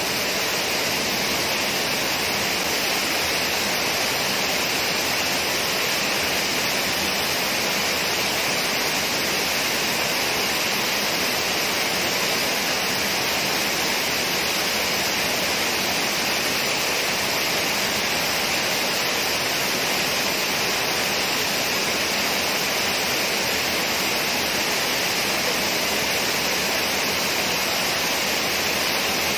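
Water pouring over a wide, low weir and falling into the pool below: a loud, steady rush of water with no break.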